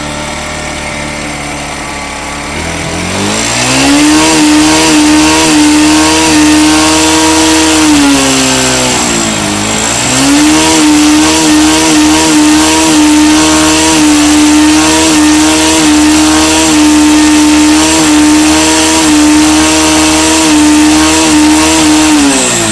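Bajaj Pulsar NS160's single-cylinder engine run with one of its spark plugs out for a spark test, revved up and held at high revs. The revs drop briefly about nine seconds in, climb back and hold, then fall away at the end.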